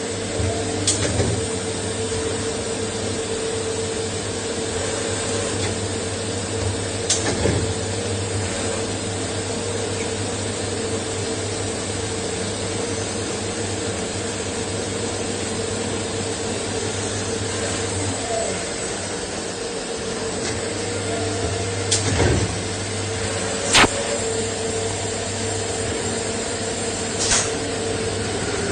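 Automatic CNC lathe running: a steady mechanical whir with a held mid-pitched tone and a low hum, broken every few seconds by a short sharp knock, about five in all, the loudest a little over two thirds of the way through.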